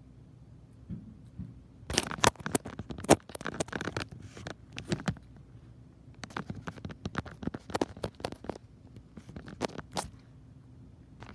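A crinkly plastic snack bag handled close to the microphone, giving irregular bursts of crackling and crunching with short pauses between them.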